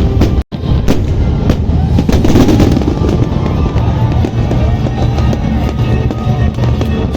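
Fireworks crackling and popping in quick, dense strokes over background music, with a brief dropout to silence about half a second in.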